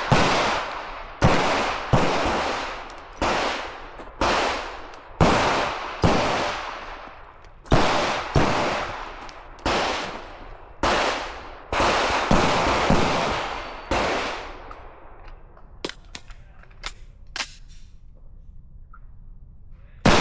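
A string of single gunshots from a competitor shooting a stage, about one a second, each ringing out with a long echoing tail, for about fourteen seconds. A few light clicks follow near the end.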